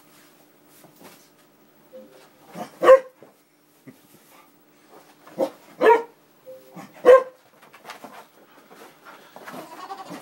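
English Springer Spaniel barking sharply about four times, a few seconds apart, then quieter rising and falling sounds near the end. It is barking in agitation at the Xbox 360's disc tray.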